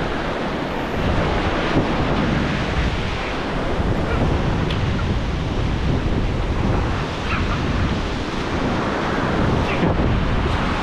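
Ocean surf washing in over the sand in the shallows, a steady rushing wash, with wind buffeting the microphone.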